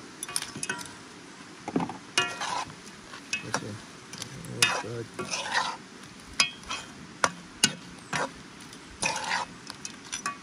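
A utensil stirring and scraping in a pan of sizzling crayfish, with irregular scrapes and clinks over a steady frying sizzle.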